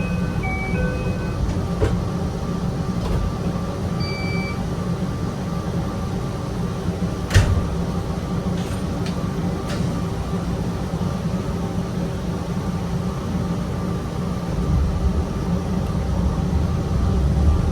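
Stationary narrow-gauge 260-series electric train with a steady electrical hum from its equipment. A few short electronic beeps sound in the first few seconds and a sharp clack comes about 7 seconds in. Near the end a low rumble builds as the nose-suspended traction motors start the train moving.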